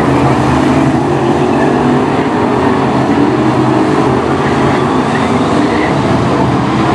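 Several BriscaF1 stock cars' V8 engines running together at racing speed, a loud, steady blend of overlapping engines.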